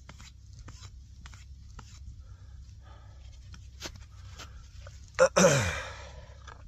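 A man's short grunting exhale, falling in pitch, together with a burst of clothing rustle as he squats down, about five seconds in; before it only faint scattered clicks and crunches.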